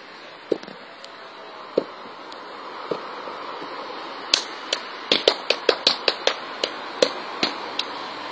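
Schuhplattler body percussion: a few single hand slaps, then from about halfway a quick run of sharp slaps and claps, about four or five a second.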